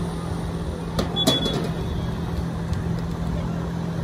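Steady low outdoor rumble, with two sharp claps about a second in, the second followed by a brief high chirp.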